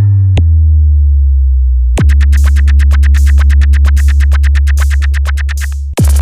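Electronic DJ sound-check music with heavy bass. A deep, slowly falling bass tone and a few sharp hits give way, about two seconds in, to a fast roll of drum hits, about eight a second, over a loud steady bass. It ends in a falling bass sweep just before the next section starts.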